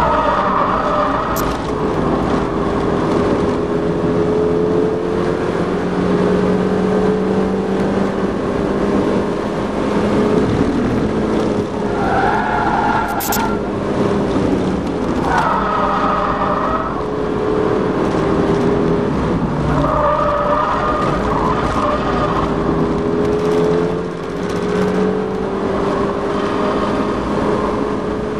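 Onboard sound of a stock Mazda MX-5 NA6's 1.6-litre four-cylinder engine at racing revs, its pitch climbing steadily through each gear and dropping at the shifts and braking, under steady wind rush. The tyres squeal briefly several times in the corners.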